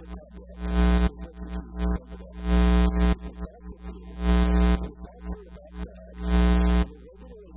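Electrical mains hum and buzz that swells loud four times, about every two seconds, each time for about half a second.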